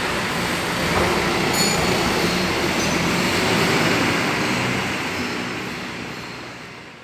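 Diesel engine of a Hino coach bus running with a steady rumble and hiss, fading out over the last few seconds.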